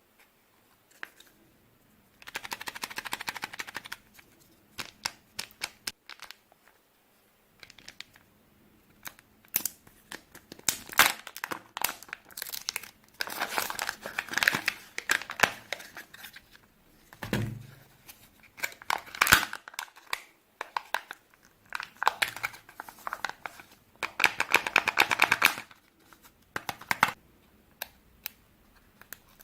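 Kinder chocolate egg wrappers crinkled and torn open by hand, in repeated bursts of rustling with sharp clicks between them. A single soft low thump comes about 17 seconds in.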